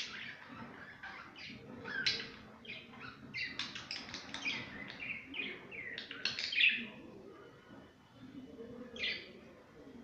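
Budgerigars chirping and chattering in quick runs of short, high calls, busiest in the middle, with a single call near the end.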